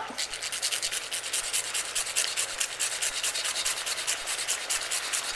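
Spoon scraping quickly and evenly through rice in a thickening maple syrup sauce in a pan, a steady rasping rhythm of several strokes a second.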